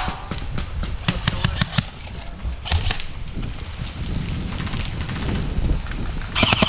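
Airsoft guns firing in short rapid runs of sharp clicks: a cluster about a second in, another near the three-second mark, and a dense burst near the end, over a steady low rumble.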